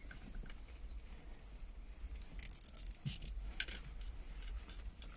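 A plastic cable tie being pulled tight around a bundle of cable: a short rasp about two and a half seconds in, among scattered small clicks and rustles of handling.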